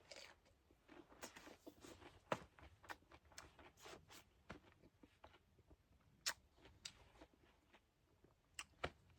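A person chewing a mouthful of crisp wild fruit, heard as faint, irregular small crunches. They come thickly through the first half and grow sparser later.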